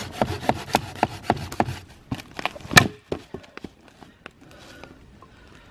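Machete chopping into dead wood at a tree stump to cut firewood: a quick run of knocks about three or four a second, one louder crack a little before the middle, then a few scattered strikes.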